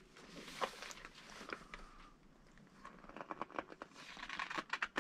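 Faint handling noises: light paper rustles and small clicks and taps, as pages of a kit instruction manual are turned and handled. A few isolated clicks in the first half, then a denser run of them over the last two seconds.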